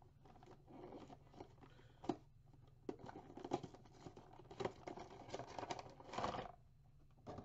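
Action figure packaging being handled and opened: scattered faint rustles, scrapes and clicks of cardboard and plastic, with a longer rasp of tearing or crinkling about six seconds in.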